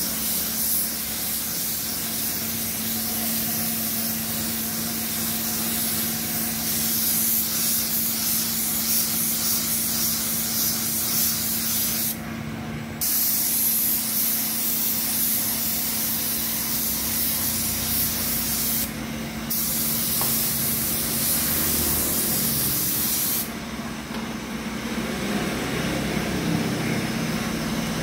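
Paint spray gun hissing steadily as silver paint is sprayed in thin coats to blend a small repaired spot into the old paint. The hiss stops briefly twice, about 12 and 19 seconds in, and ends about 23 seconds in, with a steady low hum underneath throughout.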